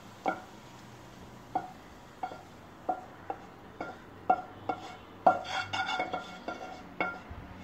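A metal spoon clinking and scraping against a pan as stir-fried corn is spooned out into a bowl: about a dozen sharp, ringing clinks at uneven intervals, with a quick run of them about five seconds in.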